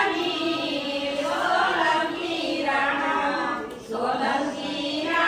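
A group of women singing a devotional folk song together without instruments, on drawn-out, gliding notes, with a brief pause between lines about four seconds in.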